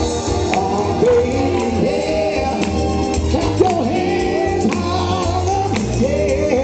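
Live R&B vocal group singing over a band through a PA sound system, with a steady bass line and drums underneath and the sung melody swooping with vibrato.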